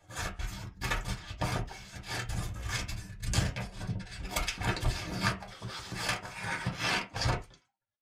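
Scissors cutting in a continuous run of quick, uneven snips, several a second, with the sound of the blades sliding through the material between them; the cutting stops suddenly near the end.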